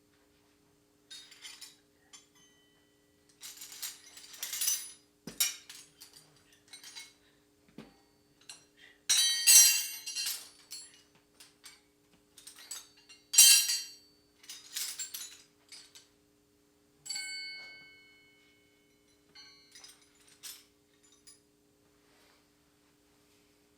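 Metal hand tools clinking and clattering as they are handled and set down, in irregular bursts, the loudest two near the middle. About two-thirds of the way through, one piece of metal rings out clearly and fades over about a second. A faint steady hum runs underneath.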